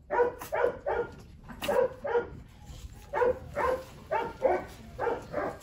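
Hungry Rottweiler puppies yapping: a run of short, high barks, about two or three a second, with a brief pause partway through.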